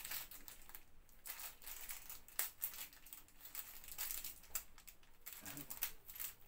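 Small clear plastic bag crinkling and crackling irregularly as fingers work at it, trying to get it open.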